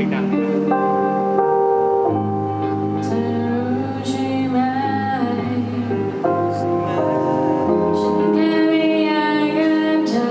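Electronic pop song played live: sustained synthesizer chords under a sung melody.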